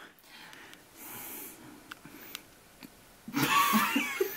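A soft breathy exhale in a quiet pause, then wheezy laughter breaking out near the end.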